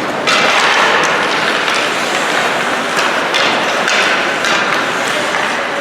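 Ice hockey play in a rink: repeated sharp knocks of sticks and puck against the ice and boards over a steady hiss of skates and the arena.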